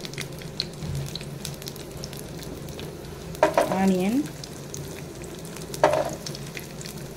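Dried red chillies, garlic and ginger frying in shallow oil in a non-stick pan: a steady sizzle with light crackles. Whole small shallots are dropped into the hot oil about three and a half seconds in and again near six seconds, each time giving a louder burst of sizzling.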